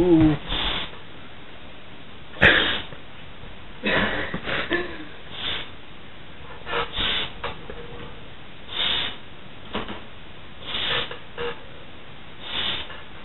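A person blowing hard through the nose into a rubber glove stretched over the face, inflating it. Short, breathy puffs come every one to two seconds, the loudest about two and a half seconds in.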